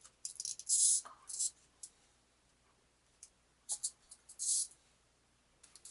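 Small plastic toy-kit parts clicking and scraping as they are handled and pressed together, in several short scratchy bursts.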